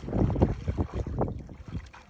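Wind buffeting the microphone in uneven low gusts, with light splashing from two Rottweilers wading in shallow water.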